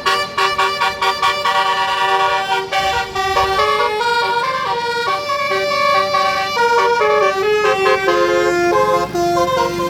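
Basuri 'telolet' musical air horn on a bus playing a fast melody, its notes stepping quickly up and down in short blasts with a few longer held notes.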